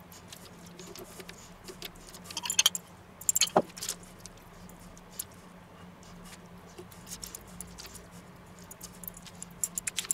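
Pastry brush dabbing and spreading apricot jam over dough on a metal baking tray, with scattered light clicks and knocks from the brush and tray, a small cluster of them about two and a half to three and a half seconds in. A faint steady hum runs underneath.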